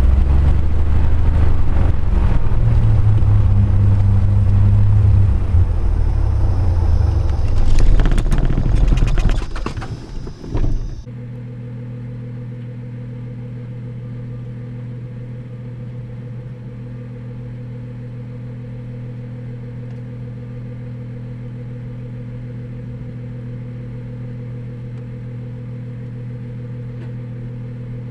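Light aircraft's propeller engine idling, rising briefly about eight seconds in, then sputtering and stopping at shutdown about ten seconds in. A quieter steady low hum carries on after the engine stops.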